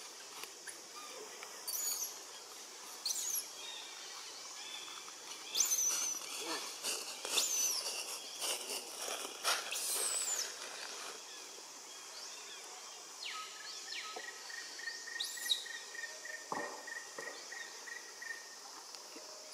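Baby long-tailed macaque giving short, high-pitched squeals that rise and fall, several through the first half and one more near the end.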